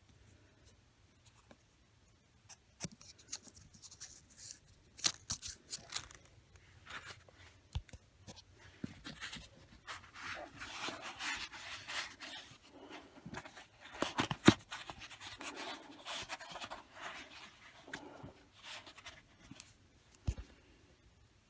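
Household water pipes creaking and ticking as hot water is run through them: irregular creaks, scratchy rubbing and clicks, with a few sharper snaps, the loudest about five seconds in and again around fourteen seconds in.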